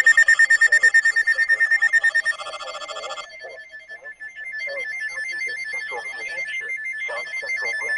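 Weather radio receiver's electronic alert alarm: a high, rapidly trilling beep that changes pattern about two seconds in, drops away briefly, then resumes as a two-note trill, signalling an incoming severe weather warning.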